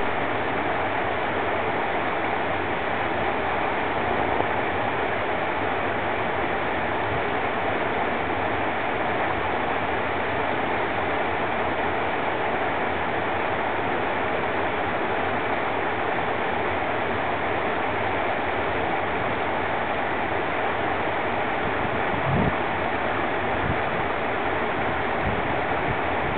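Steady rushing of white water pouring over a waterfall, with a brief low thump about 22 seconds in.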